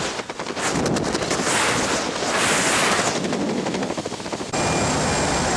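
Wind buffeting the microphone of a helmet-mounted camera under an open parachute canopy, swelling and fading in gusts. About four and a half seconds in it switches abruptly to the steady drone of a jump plane's cabin.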